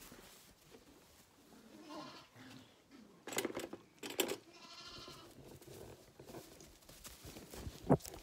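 Zwartbles lambs bleating: a faint bleat, then a longer one about halfway through, with a few sharp knocks in between and near the end.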